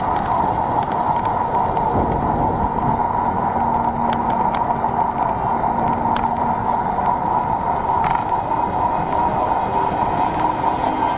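Steady wind and road noise from a bicycle riding at speed, picked up by a bike-mounted action camera, with a few faint clicks about halfway through.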